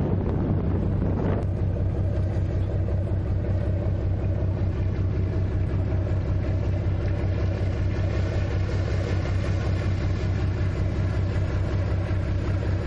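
Boat engine running at a steady, unchanging speed: a low, even hum with no rise or fall. Wind buffets the microphone for the first second or so.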